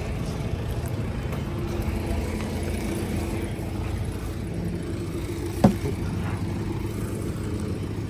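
Rough-terrain forklift's diesel engine running steadily as it carries a portable cabin off the lorry. One sharp knock comes a little over halfway through.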